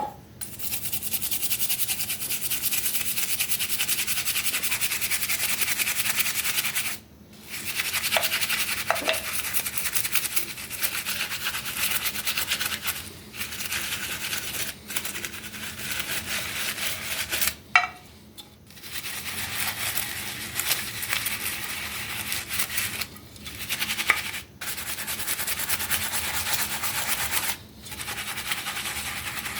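Continuous abrasive rubbing on the mug, with a hiss-like rasp that stops briefly every few seconds and then starts again.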